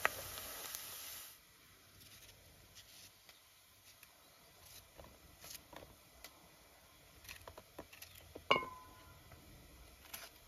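Onions sizzling in oil in an enamel pot, cutting off about a second in. Then small crisp knife cuts through zucchini as it is cubed by hand over a steel bowl, with one louder, ringing clink at about eight and a half seconds.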